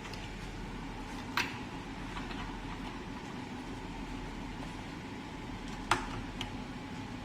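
Two sharp clicks, about four and a half seconds apart, with a few fainter ticks, from tools and small injector parts being handled during diesel injector disassembly, over a steady background hum.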